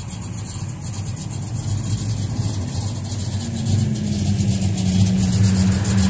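Car engines as cars roll slowly past at close range, a low, steady engine rumble that grows louder over the second half.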